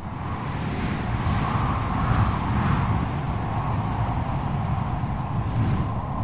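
Strong storm wind blowing steadily: a deep rumble under a howling whistle that swells about two seconds in, then evens out.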